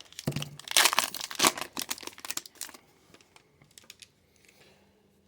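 Plastic wrapper of a hockey trading card pack being torn open and crinkled, loudest in the first three seconds, then fading to faint rustling as the cards are handled.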